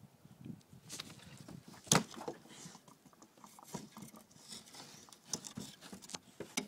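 Light scattered clicks and scuffs from a dog moving about on a carpeted deck and handling a stick, with one sharp knock about two seconds in.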